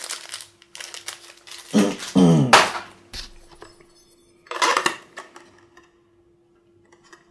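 Clinking and rattling as an aluminium pistol outer barrel and its packaging are handled, in a few short separate bursts.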